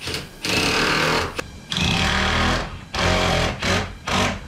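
Cordless impact driver driving screws into laminated wood in several bursts of about a second each, then shorter blips near the end, to hold the dry-fitted carlin pieces in position.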